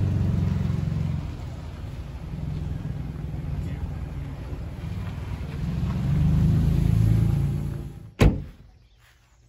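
Pickup truck driving: low engine and road rumble that swells twice. The rumble stops near the end, followed at once by a single sharp thump.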